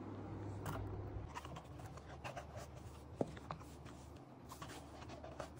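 Faint handling sounds and a few light taps as a pair of high-heeled shoes is held and set down on a rug, over a low steady hum.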